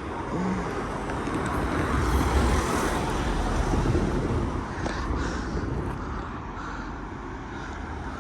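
A train passing over the level crossing: a rushing rumble that builds to its loudest about two to three seconds in, then slowly fades.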